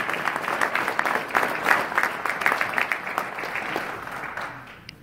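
Audience applauding, a dense patter of many hands clapping that gradually dies away near the end.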